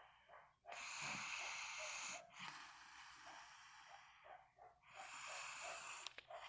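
Snoring: two long, airy breaths about four seconds apart, the first about a second in and the second near the end, with faint quick fluttering between them.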